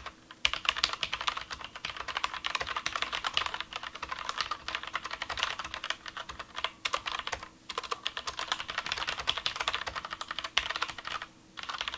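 Typing on a Steelseries 6Gv2 mechanical keyboard with linear, non-clicky Cherry MX Black switches: a fast, steady stream of key clacks as a sentence is typed out, with a few short pauses about 3.5, 7 and 11 seconds in.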